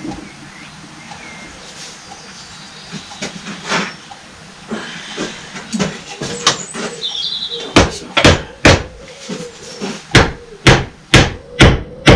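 Hammer blows on the metal body of a hydraulic pump being stripped, knocking a stuck part loose: lighter clinks and knocks of handling at first, then from about eight seconds in a run of loud, sharp strikes about two a second.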